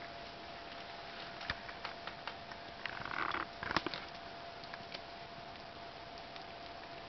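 Soft clicks and rustles from a Bengal cat licking and grooming a kitten in a wicker basket. A brief louder rustle comes about three seconds in, with a sharp click just after. A faint steady hum runs underneath.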